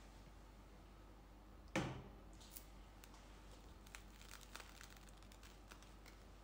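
Pepperoni pizza slice being torn apart by hand: the crust gives one sharp crackle about two seconds in, followed by faint scattered crackles and ticks as it keeps tearing.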